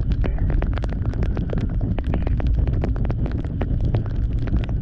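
Wind rumble on the microphone of a Bajaj Dominar 400 motorcycle cruising steadily in fourth gear in rain, with many quick irregular ticks of raindrops striking the camera.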